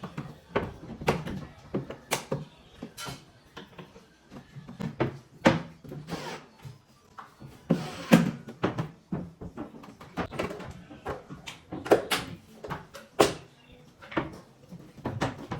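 Irregular knocks and clatter of wooden kitchen cabinet parts being handled and fitted, with a few sharper, louder strikes among them.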